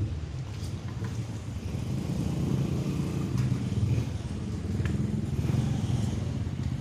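Portable rice huller-polisher running on its small petrol engine, a steady low engine drone.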